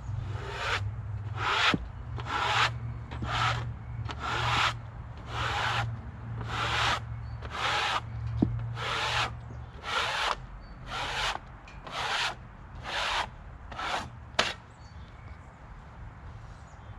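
Rhythmic rasping strokes on wood, about one a second, some fourteen in all, stopping about three quarters of the way through. A low steady hum runs underneath and cuts off about halfway.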